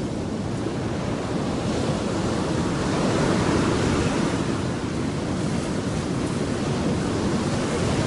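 Steady rush of ocean surf on a sandy beach, swelling a little a few seconds in.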